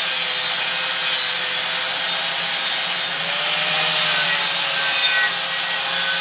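Angle grinder running with its disc pressed against the inside edge of a rusty steel tube: a steady loud grinding hiss over a thin motor whine that wavers a little in pitch midway. The inside of the tube is being cleaned up to take a weld.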